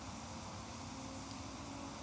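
Fire burning with a steady hiss and rumble and a single faint crackle about a second in, a faint steady hum underneath.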